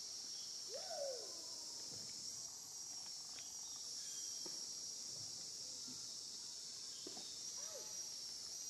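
Steady high-pitched drone of insects, with two short calls that rise and fall in pitch, one about a second in and one near the end.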